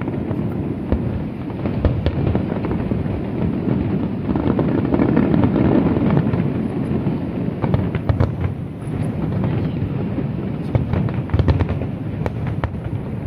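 Aerial fireworks display: a continuous rumble of overlapping booms, heaviest about four to six seconds in, with many sharp cracks and crackles through it, bunching into rapid crackling near the end.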